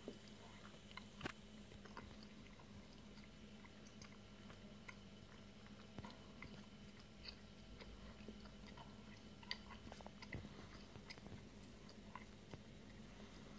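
Faint steady hum of aquarium pump equipment, with scattered small clicks and crackles over it, a couple of sharper ticks standing out about a second in and near the middle.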